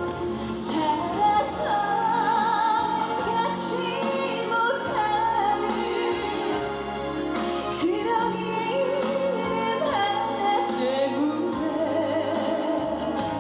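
Instrumental intro of a Korean trot ballad: a lead melody line with heavy vibrato over a full backing track.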